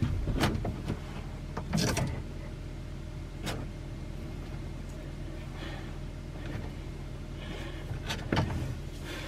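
A hand handling a plastic ice-maker water line and its compression fitting while checking for a leak, giving a few scattered light knocks and rustles. Under them is a steady low hum.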